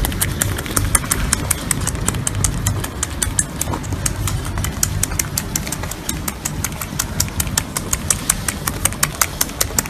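Otter pup suckling at a milk bottle's teat: a steady run of rapid, even wet clicks, several a second.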